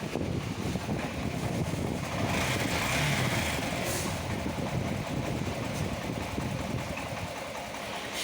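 Honda SP 125's single-cylinder engine running at idle after a tappet adjustment and timing-chain job meant to cure a noise from the cylinder head.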